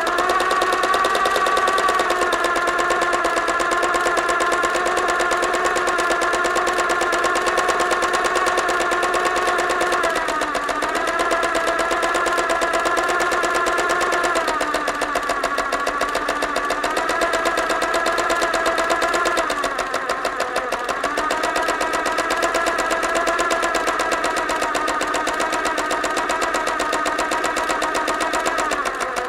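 Electric sewing machine running steadily at speed with a fast, even chatter of the needle mechanism. It slows briefly about three times, about a third of the way in and twice more in the middle, its motor pitch dropping and then picking back up.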